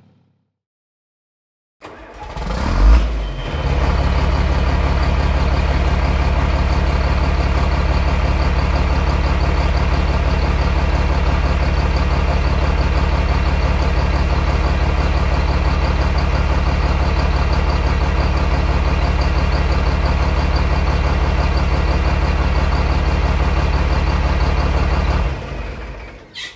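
An engine starting up about two seconds in with a brief loud surge, then running at a steady, even speed with a deep low hum, and dying away shortly before the end.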